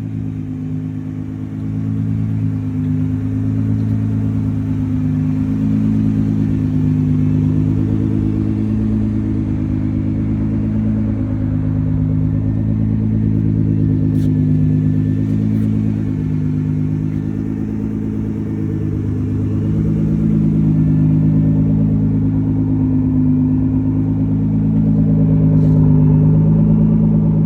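Nissan GT-R's engine idling, heard up close, with a steady, slightly wavering note and small swells in level.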